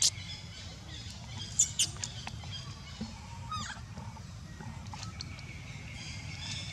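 Baby macaque giving short, sharp high-pitched squeaks: one at the start and two close together about a second and a half in, then a wavering rising call a couple of seconds later.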